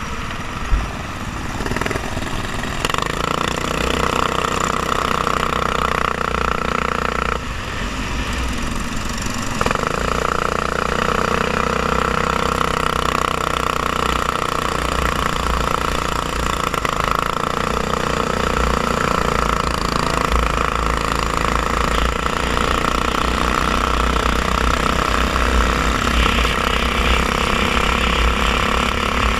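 Go-kart engine heard from an onboard camera, running hard at a steady high pitch, easing off briefly about seven seconds in and coming back on. A low wind rumble on the microphone sits under it.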